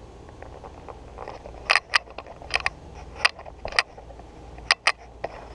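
About eight sharp metallic clicks and clinks at irregular intervals, some in quick pairs, as the wire fan guard and fan assembly are handled and set on the condenser's sheet-metal top.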